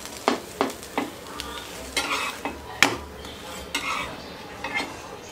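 Steel spatula tapping and scraping on a nonstick tawa as an uttapam is pressed and turned to crisp it, in a series of sharp taps and short scrapes over a light sizzle of frying.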